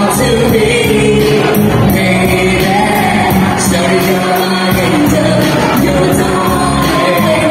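Live singing into microphones over amplified backing music with a steady beat.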